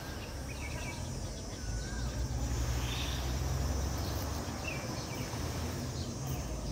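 Outdoor ambience: short, scattered bird chirps over a steady low rumble.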